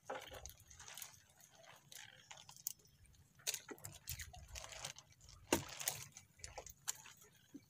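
Wet nylon fishing net being handled and drawn into a wooden outrigger boat: faint irregular rustles, drips and light knocks, the sharpest knock about five and a half seconds in.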